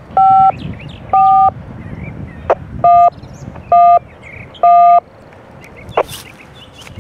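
Railroad radio heard through a scanner's speaker, sounding a train crew's touch-tone code: five short two-tone beeps at uneven spacing, with two sharp clicks between them. The tones are the dial-up command for a radio-controlled siding switch.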